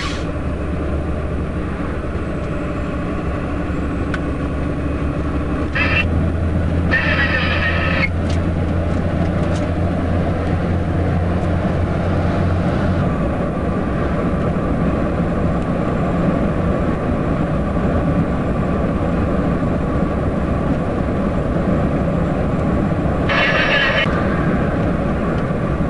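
IVECO truck's diesel engine running steadily under way, heard from inside the cab, with road noise. The low engine hum rises about six seconds in and drops away around the middle.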